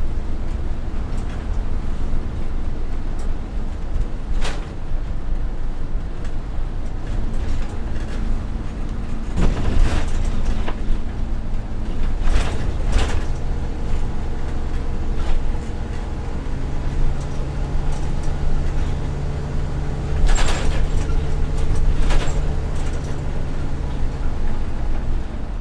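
Inside a local bus: the engine runs with a steady low rumble, and several short, sharp clatters and noisy bursts cut through it, the biggest about ten seconds in and again near twenty seconds.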